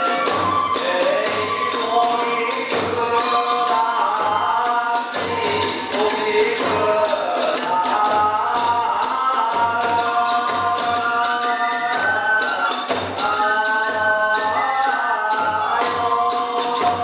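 Hiroshima kagura accompaniment: a large drum beating steadily with jangling hand cymbals and a gliding melody above.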